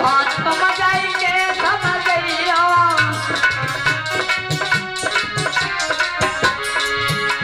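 Live Hindi folk/devotional song: a boy's voice sings a long, bending phrase over drum strokes and steady held accompaniment notes for about the first three seconds, then the drumming and accompaniment play on alone.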